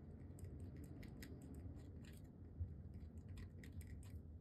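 Pen writing by hand on planner paper: faint, irregular scratches and ticks of the strokes.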